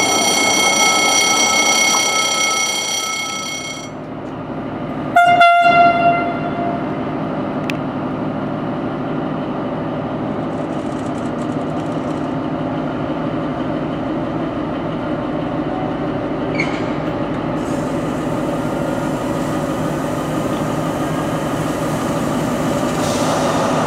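A passing locomotive's wheels give a high, steady squeal, which ends at a cut. Then an SNCF BB 75000 diesel locomotive sounds one short, loud horn blast about five seconds in. It runs on steadily as it hauls a container freight train through a station.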